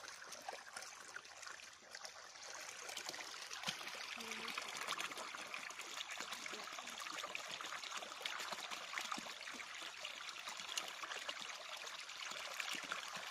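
Water pouring from an irrigation pipe's outlet into a muddy channel: a steady splashing trickle, louder from about two seconds in.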